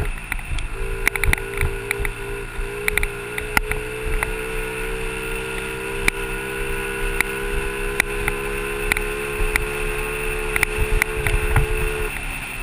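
Honda 50cc dirt bike's small four-stroke single-cylinder engine running at steady high revs while riding a dirt trail. The pitch dips briefly near the start and the engine note drops away just before the end, with scattered sharp clicks and knocks over a low rumble.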